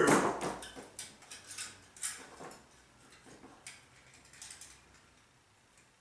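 Handling noise of an electrical box and sheathed electrical cable as the wire is pushed through the box's knocked-out tab: a series of light clicks and rattles, thinning out and dying away over the last couple of seconds.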